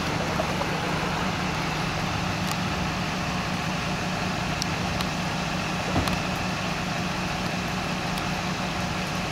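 Vehicle engine idling, a steady low hum over an even noisy hiss, with a short knock about six seconds in.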